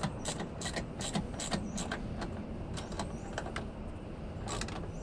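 Ratchet wrench clicking in quick strokes as the battery hold-down bracket is tightened. There is a short pause about four seconds in before the clicking starts again.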